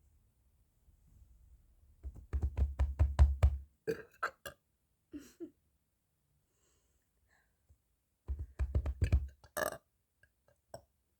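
A person burping: two long burps, the first about two seconds in and the second about eight seconds in, each followed by a few short, smaller sounds.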